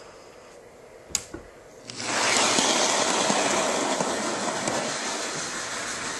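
An electric model Thomas the Tank Engine locomotive running along its track, its motor and wheels making a steady whirring rush that starts about two seconds in and fades a little as it moves away. A single sharp click comes just before it starts.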